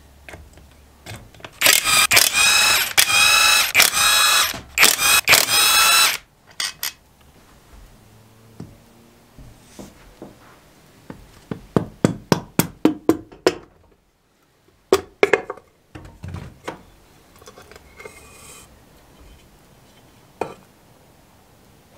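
A power driver with a socket runs in four short rattling bursts, spinning out the bolts of a Briggs & Stratton engine's crankcase side cover. Later a rubber hammer knocks on the cast cover in a quick run of about a dozen taps, then a few more, to break it loose from the block.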